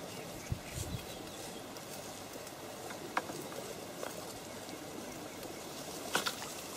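Quiet outdoor ambience at the water's edge: a faint even background with a few short, soft clicks.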